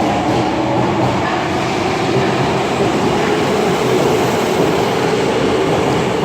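Osaka Metro Tanimachi Line subway train running past the platform: a steady, loud rumble of wheels on rails.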